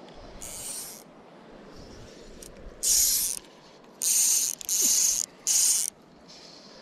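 Fly reel's click-and-pawl drag buzzing as fly line is pulled off it by hand, in five quick pulls of about half a second each; the first is fainter, and the last three come close together.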